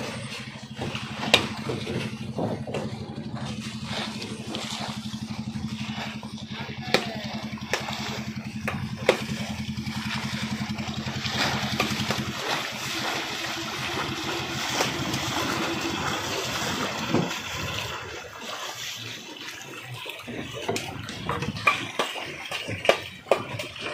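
A boat engine running steadily at low revs, which cuts out about halfway through, with waves sloshing and splashing around the hull and a few sharp knocks.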